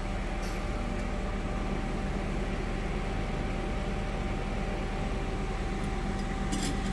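Steady mechanical hum of an idling CNC lathe with a few constant tones, and two faint light clicks, about half a second in and near the end, as a tool is seated by hand in the live-tool collet.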